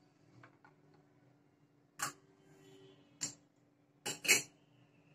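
Small stainless steel bowls clinking as they are tapped against a stone mortar and set down on the table: a few sharp clinks about two, three and four seconds in, the pair near four seconds leaving a short metallic ring.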